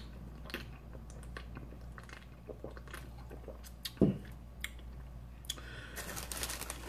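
Small mouth clicks and sips from a can of sparkling water, a single low thump about four seconds in, then crackling and rustling near the end as hands tear apart a baked stromboli's crust in its paper-lined cardboard box.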